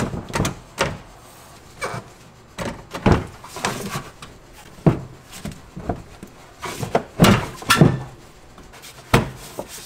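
Irregular knocks, clunks and scrapes of hands working on parts under a car at the fuel tank, about ten separate hits, loudest about seven seconds in.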